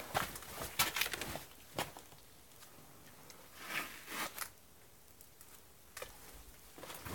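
Footsteps on a gravelly canyon floor, uneven scuffs and crunches: a cluster of steps in the first two seconds, more near four seconds, single steps near six and seven seconds, with quiet gaps between.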